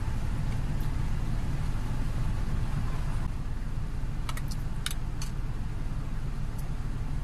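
Steady low engine hum from a vehicle, heard inside a truck cab, with a few light sharp clicks about four to five seconds in as a metal can and food containers are handled.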